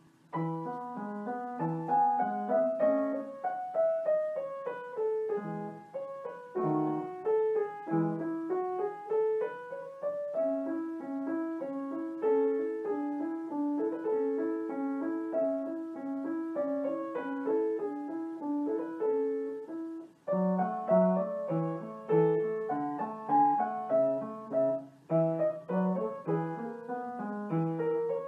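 Background piano music: a melody of flowing note runs over a repeating chord accompaniment, with a brief pause about twenty seconds in.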